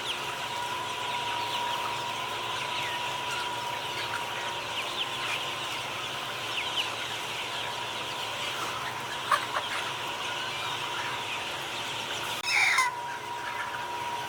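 A flock of chickens clucking and chirping over a faint steady whine, with one louder call falling in pitch near the end.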